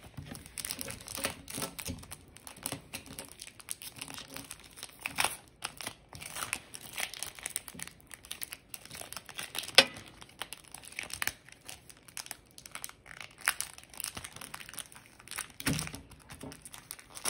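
Wrapper of a Panini Contenders baseball card pack crinkling and tearing as it is opened by hand, with irregular crackles and one sharper crack about ten seconds in.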